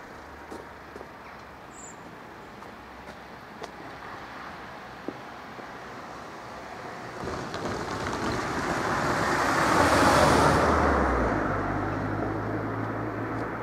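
A car drives past, its tyre and engine noise building to the loudest point about nine to ten seconds in, then fading away.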